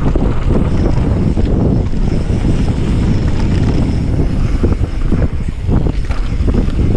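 Heavy wind buffeting the microphone on a moving mountain bike, mixed with tyres crunching over gravel and the bike rattling over bumps, with the knocks coming more often in the second half.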